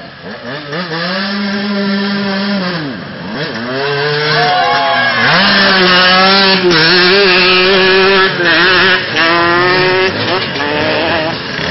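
Off-road dirt bike engines revving up and down as the bikes ride by, loudest about halfway through as one passes close.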